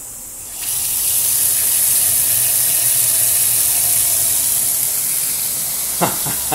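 Running water with a steady rushing hiss, starting about half a second in. A voice is heard briefly near the end.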